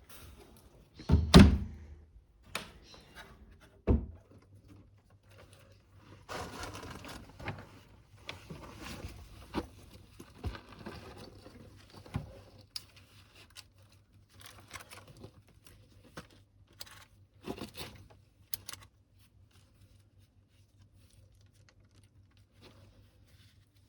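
A heavy thump, then a second knock a few seconds later, followed by irregular rustling, knocking and clicking as things are handled. A faint low steady hum starts at the second knock.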